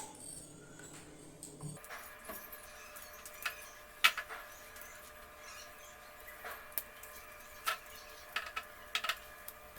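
Ghee heating in a kadai on the stove, giving off scattered small crackles and pops at irregular intervals, the loudest about four seconds in.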